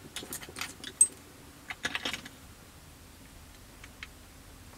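Light clicks and taps of plastic model-kit parts and tools being handled, with one sharp click about a second in and a short cluster of taps near the middle.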